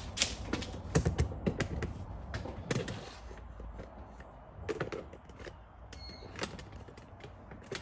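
Irregular clicks and knocks of hand work with tools and metal hardware, loudest in the first three seconds, over a low steady hum.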